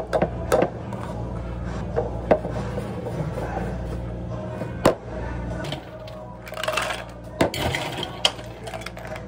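Scattered knocks and clinks of a scoop and utensils against a clear plastic drink cup, then a short rattle of ice cubes dropped into the cup about two-thirds of the way through, followed by a few more clicks.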